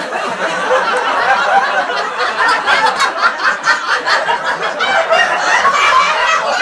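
A dense crowd of many overlapping voices chattering and laughing without pause, an AI-generated crowd sound effect.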